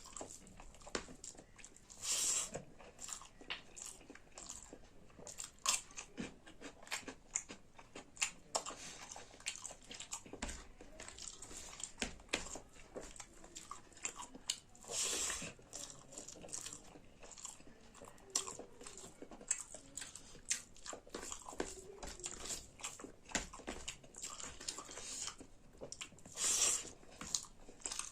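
Close-miked chewing and mouth sounds of someone eating rice with saag: many small wet clicks and smacks, with a few longer, louder bursts about two seconds in, midway and near the end.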